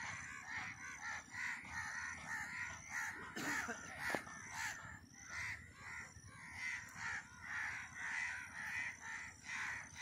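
Birds calling over and over in an even rhythm, about two short calls a second.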